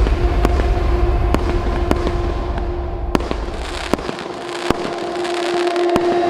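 A 200-shot, 1-inch-calibre firework cake firing: sharp, separate bangs about every half second over a low rumble that dies away about four seconds in.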